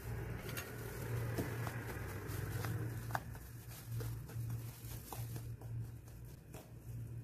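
Wooden spoon stirring dry flour in a glass bowl: soft scraping with several light taps and clicks against the glass, over a low steady hum.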